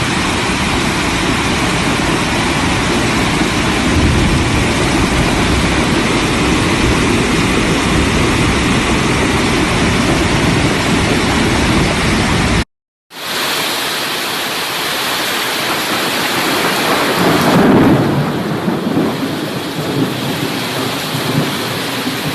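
Heavy rain pouring down steadily with a deep low rumble under it. About halfway through the sound drops out for a moment and comes back as a different recording of the downpour with less rumble.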